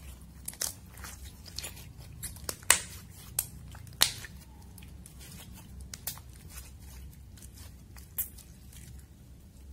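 Glossy eyeshadow-mixed slime being squeezed and kneaded in the hands, making irregular wet clicks and pops, the loudest a little under three seconds in and at about four seconds.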